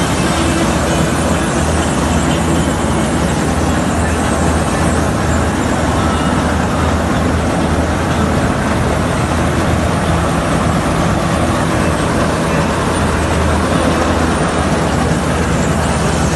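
Surendra combine harvester running steadily, its engine and working machinery making a loud, even drone.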